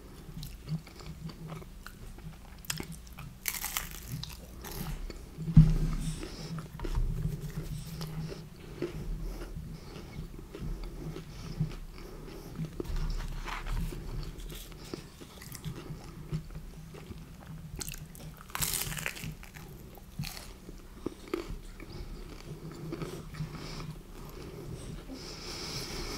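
Close-miked chewing and biting of pizza, with some crunching and small mouth noises, irregular throughout. A dull low thump about five and a half seconds in is the loudest sound.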